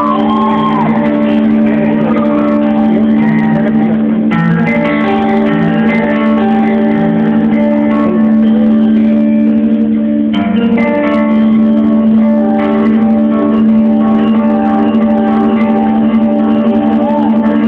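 Live band music with guitar: an instrumental passage, with melody notes moving over a steady held low note.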